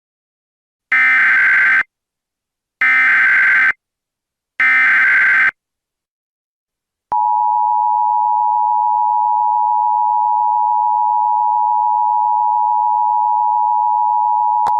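Emergency Alert System activation: three one-second bursts of SAME header data, a harsh electronic screech, then the EAS two-tone attention signal, one steady tone held for about eight seconds.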